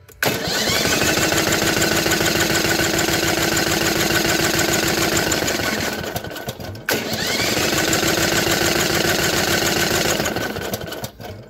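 Briggs & Stratton Vanguard V-twin being cranked on its electric starter without firing, twice: once for about six seconds and again for about four. The cranking is a fast, even chugging, with a whine that rises as the starter spins up each time. This is a compression test on the cylinder with the better head gasket, which reaches about 170 psi.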